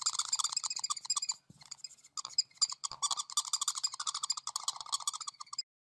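Fast chirping trills, as from a small bird, at about nine chirps a second in two long runs with a brief lull between them, cutting off suddenly near the end.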